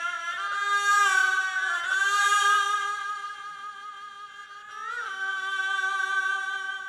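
Haegeum, Korean two-string bowed fiddles, played together in long sustained notes with a nasal, voice-like tone. They slide into new pitches a couple of times, swell and bend about five seconds in, then fade near the end.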